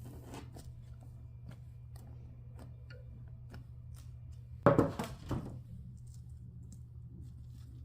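Quiet kitchen handling sounds over a low steady hum: scattered light clicks, then about halfway through one sharp knock with a short clatter after it.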